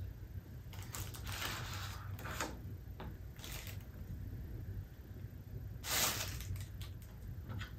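Cardboard watch packaging and a clear plastic wrapper handled by hand: a few short scrapes and rustles, the loudest about six seconds in as the plastic bag is pulled off the watch.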